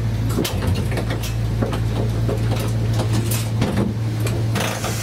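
Inside a standing Chikuho Electric Railway tram: a steady low hum from its onboard equipment, with scattered light clicks and knocks and a short hiss near the end.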